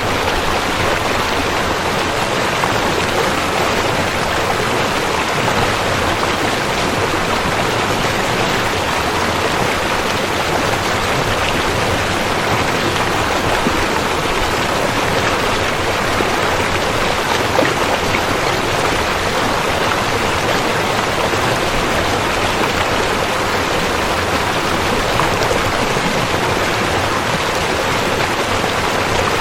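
River water flowing, a steady, unbroken rush of water.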